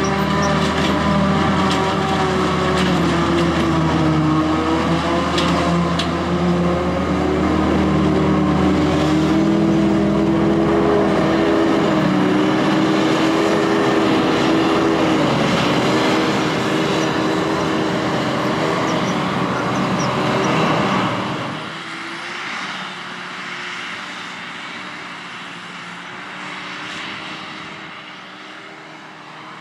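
Claas Jaguar 870 self-propelled forage harvester running at work, chopping grass for silage and blowing it into a trailer, together with the tractor pulling that trailer alongside: a loud, steady engine drone with several tones that waver slightly in pitch. About two-thirds of the way through it drops suddenly and carries on quieter and more distant.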